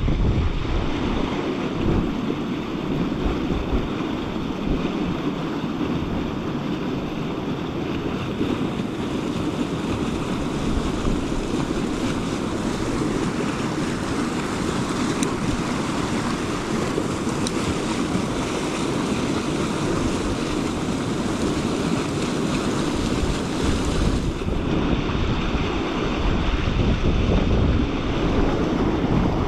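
Steady rush of river water flowing, with wind buffeting the microphone in an uneven low rumble.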